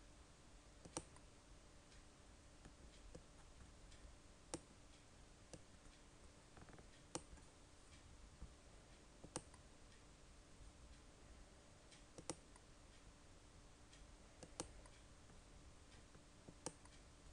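Computer mouse button clicking: about seven single sharp clicks, spaced two to three seconds apart, over a faint steady hum of room tone.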